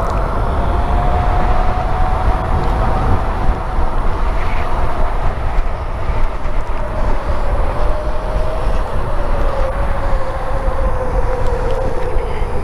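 Onyx RCR ebike's electric hub motor whining while riding, its pitch rising a little early on and then slowly falling as speed changes, over heavy wind rumble on the microphone.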